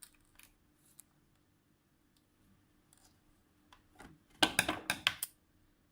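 A quick run of sharp clicks and rustles about four and a half seconds in, from handling small tools and the sleeved cable, with a few faint ticks before it over quiet room tone.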